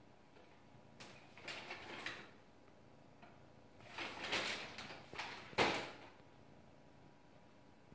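A cat's paws kneading a plush toy: soft rustling and scratching of paws and claws on the furry fabric in a few short bursts, the sharpest about five and a half seconds in.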